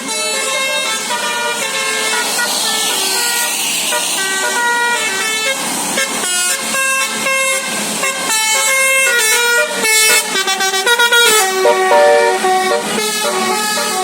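A bus's basuri musical air horn (telolet horn) playing a melody. It starts with longer held notes, then plays quicker, choppier notes from about halfway through.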